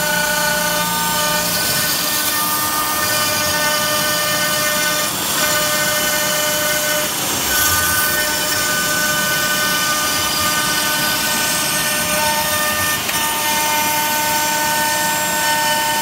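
Router spindle of a home-built CNC router running with a steady high whine and the hiss of the bit cutting letters out of a wood sheet. The pitch of the whine shifts slightly a few times.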